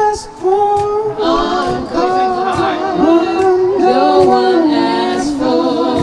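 Mixed male and female a cappella vocal group singing improvised harmony into microphones, several voices holding notes and sliding together from chord to chord.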